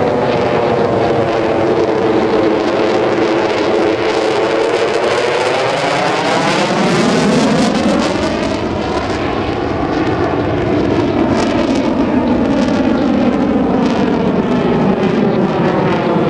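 Continuous loud jet noise of an F-16CJ Fighting Falcon's single turbofan as the fighter flies demonstration manoeuvres overhead. A swirling, phasing sweep runs through its tone, falling, rising again about halfway through, then falling.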